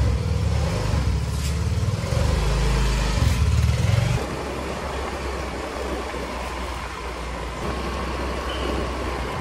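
Small step-through motor scooter engine running loud and close as the scooter pulls away, dropping off suddenly about four seconds in. After that comes a steadier, quieter engine rumble with road noise, heard from the moving scooter.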